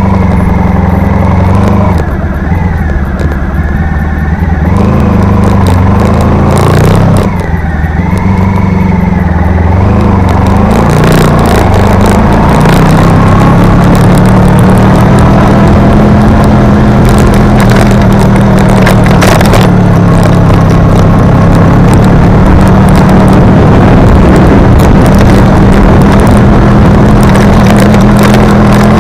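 Engine of the vehicle carrying the camera, driving up a steep narrow road. Its note dips briefly twice in the first several seconds, then runs steadily and rises slowly, over a noisy rush with scattered crackles.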